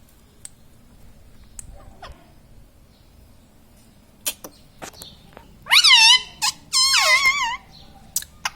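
Indian ringneck parrot giving two loud, shrill calls with a wavering pitch, about six and seven seconds in, preceded and followed by a few short sharp clicks.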